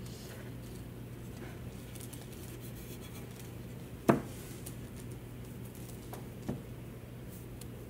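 Hollow ceramic bisque stable knocking sharply once against the worktable as it is tipped up, about four seconds in, with a lighter knock a couple of seconds later. Faint rubbing before it, over a steady low hum.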